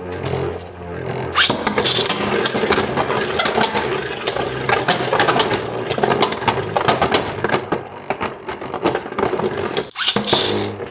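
Two left-spinning Beyblade Burst tops spinning and clashing in a stadium: a dense, rapid rattle of clicks and scrapes.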